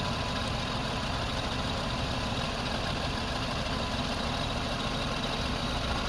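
Lexus RX 300's V6 engine idling steadily.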